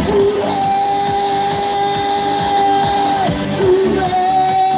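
A man singing into a handheld microphone over a recorded backing track, with two long held notes in the melody.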